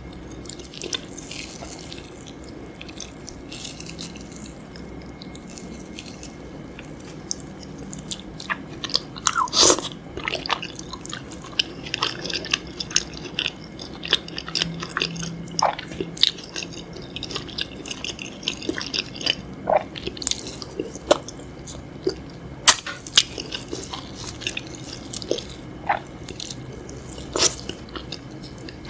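A person chewing and biting spicy chicken feet, with many short, sharp crunchy clicks and mouth noises. The clicks are sparse at first and come much more often from about eight seconds in.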